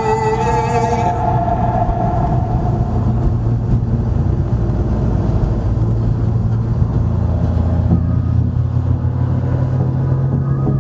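Audi A3's engine and road noise while driving, a steady low drone that grows louder about halfway through and holds at an even pitch.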